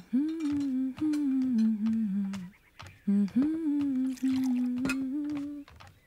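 A woman humming a slow wordless tune in long held notes, in three phrases with short breaks, along with a few light clicks.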